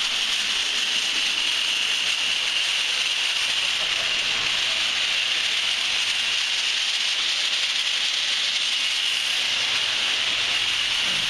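Garage door opener running the door through its travel with a very loud, steady, screechy and scratchy hiss that is shrillest high in pitch.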